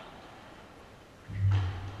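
A loud, low thump about a second and a half in, with a short sharp crack on top, that rings on as a steady low hum.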